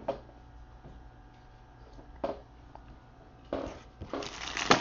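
Hands handling cards and packaging on a tabletop: a couple of light clicks, then rustling and a sharper tap in the last second or so, over a faint steady room hum.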